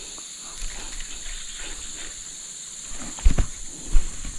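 Steady high chirring of insects, with two dull low thumps a little past three and four seconds in.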